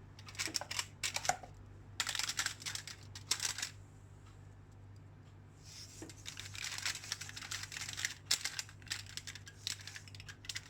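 Salt going onto raw salmon pieces: bursts of rapid, crisp clicking and crackling, in three spells with a lull in the middle, over a steady low hum.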